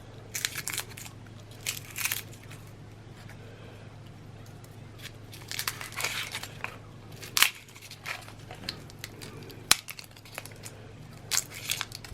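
Dry crinkling and crunching in short irregular bursts as whole garlic bulbs are handled, with a few sharp clicks.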